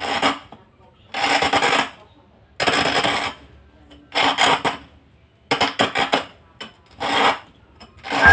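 Glass syrup bottle scraped by hand against the edge of a granite-cutting disc, six short scrapes about a second and a half apart as the bottle is turned a bit at a time. The glass is being scored with an even line so it can later be split off into a drinking glass.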